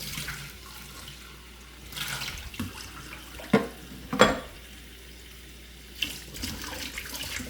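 Kitchen faucet running into the sink while dishes are rinsed under it, with a few sharp clinks and knocks of dishes against each other or the sink, the loudest a little past halfway.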